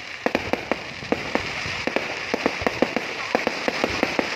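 Aerial fireworks bursting: many sharp bangs in an irregular run, several a second, over a steady hiss.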